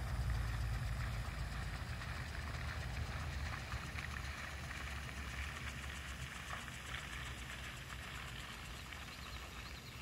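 Low engine rumble of a vehicle fading slowly into the distance, over faint outdoor background noise.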